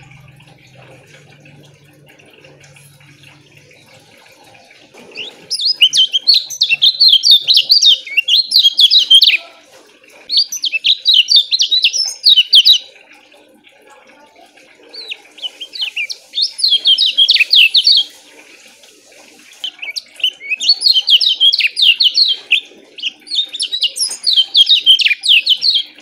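Caged kecial kuning (yellow white-eye) singing its song in five bursts of fast, tightly packed high chirps. Each burst lasts a few seconds, with short pauses between, and the first comes about five seconds in.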